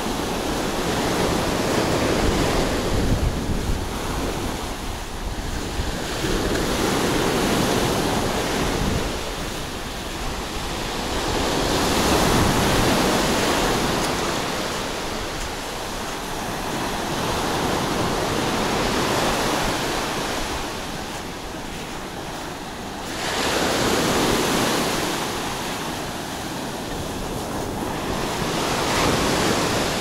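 Mediterranean surf breaking and washing up a sandy beach, the rush of water swelling and easing every few seconds, with wind buffeting the microphone.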